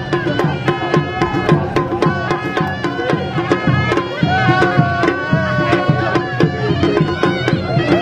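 Traditional folk music with a fast, steady drum beat under a melody line.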